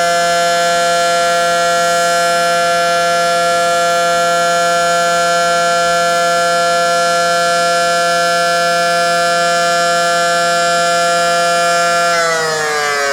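Federal Signal SD-10 dual-tone electromechanical outdoor warning siren sounding a steady chord at full speed during a routine test. About twelve seconds in, its pitch begins to fall as the rotor winds down at the end of the test.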